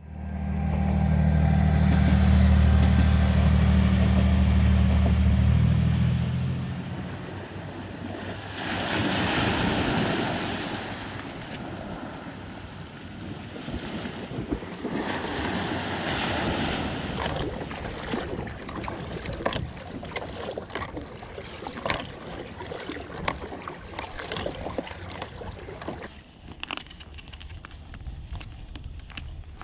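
A loud steady low hum for about the first six seconds, then two waves washing up onto a sandy beach a few seconds apart. After that, scattered clicks and knocks over water lapping around a fishing kayak.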